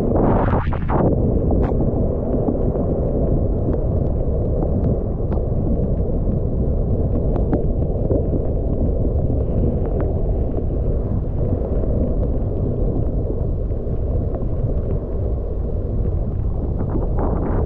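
Wind buffeting the microphone during a downhill ski run, a loud steady low rush, with a short brighter hiss about half a second in and a few faint clicks.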